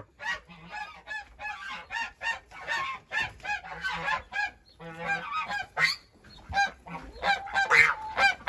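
Domestic geese honking, a quick run of short calls several a second, growing louder near the end.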